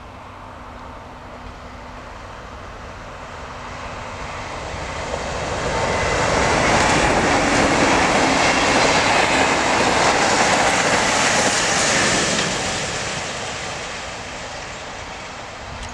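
Blue-and-white electric passenger train passing at speed. Its rushing wheel and running noise swells over a few seconds, holds loudest for about six seconds, then fades away.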